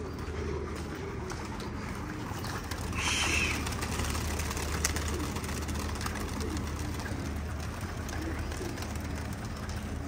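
Domestic pigeons cooing in a rooftop loft while a flock takes off and circles, with wings clattering from about four seconds in. A short hissing sound about three seconds in is the loudest moment.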